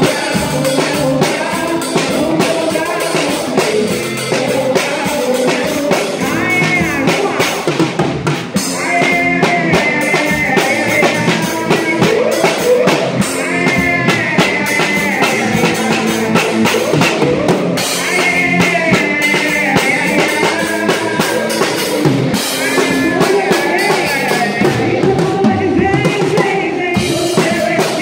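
A live band playing, with an acoustic drum kit keeping a steady beat on kick, snare and cymbals, and a singing voice coming in over it in phrases from about a quarter of the way in.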